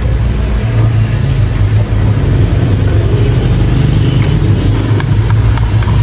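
Battery-powered toy train's small electric motor and gears running steadily as a low hum, with a few light clicks near the end.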